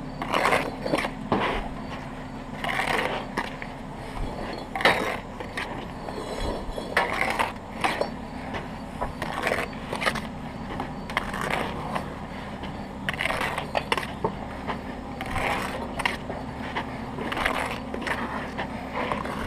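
Steel brick trowel scraping and tapping on brick and wet mortar as bricks are pressed into the mortar bed and the squeezed-out mortar is cut off. The strokes are irregular, about one a second, over a steady low hum.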